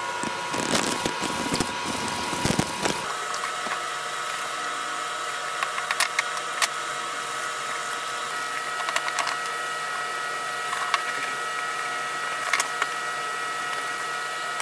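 A cloth rag wiping wood stain onto a board: soft scrubbing and rustling with light knocks as the board and can are handled, heaviest in the first few seconds. A steady hum of held tones runs underneath.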